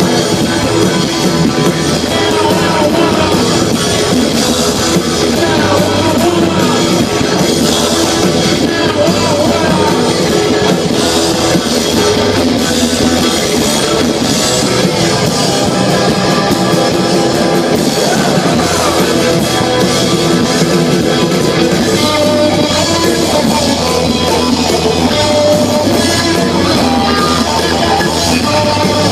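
Live punk rock band playing loud electric guitars and drums at a steady, unbroken pace.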